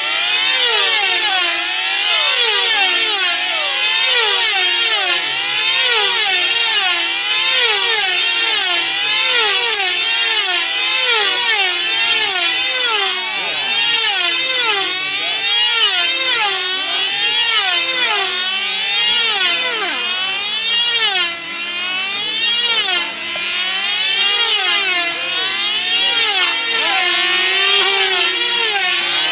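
Several small two-stroke model engines screaming together as control-line team-race planes circle at high speed. Their whine rises and falls in pitch on every pass, in overlapping waves.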